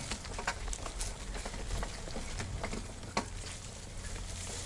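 Mountain bike rolling slowly over a damp dirt trail: a steady low rumble with scattered sharp clicks and ticks, the two loudest about a second in and just after three seconds.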